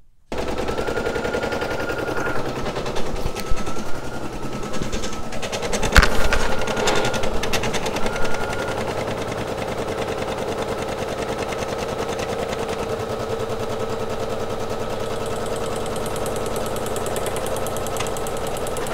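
Brother SE1900 embroidery machine sewing the placement stitch onto bare stabilizer in the hoop: a fast, steady needle clatter with a running motor tone. It starts just after the start and stops near the end, with one sharp click about six seconds in.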